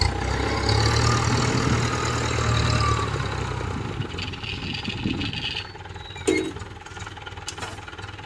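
Engine of a tracked rice-hauling cart running as the cart drives off across the field, its low hum strong for the first few seconds and then fading. A single sharp knock about six seconds in.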